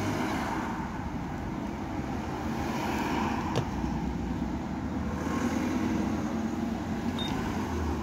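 Road traffic going by, a steady rush of passing cars that swells and fades a few times, with one light click about three and a half seconds in.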